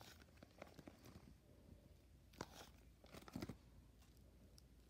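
Faint crinkling of plastic binder pocket pages holding trading cards as a page is turned and handled, with short crackles about two and a half and three and a half seconds in.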